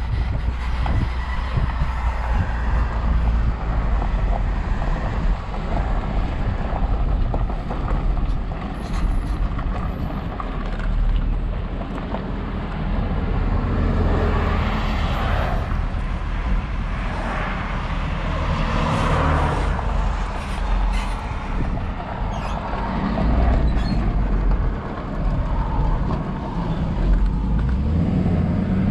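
A vehicle driving: a steady low rumble of engine and road noise.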